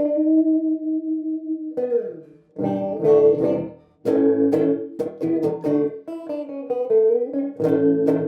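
Electric guitar played through the Earthquaker Devices / Death by Audio Time Shadows effects pedal: a chord held steady for nearly two seconds that cuts off, then repeated picked chords with short breaks between phrases.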